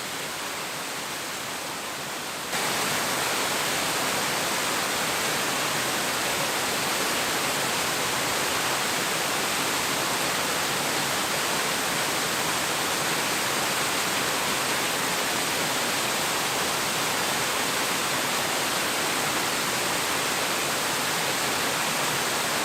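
Steady hiss of rain, which steps up louder about two and a half seconds in and then holds even.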